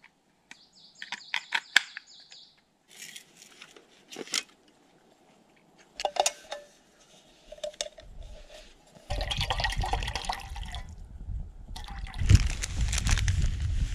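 Small metal clicks and clinks of steel camping cookware being handled, then water poured from a steel bottle into a steel cup on a small folding camp stove. A low rumbling noise sets in about nine seconds in and is loudest near the end.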